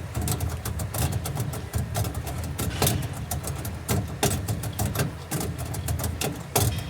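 A steady low motor hum with many irregular clicks and knocks over it.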